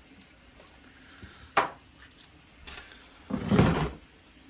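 A homemade iron spit stand knocking against a stainless-steel sink drainboard: a sharp metal clink about a second and a half in, then a louder, half-second clatter a little over three seconds in as it is set down.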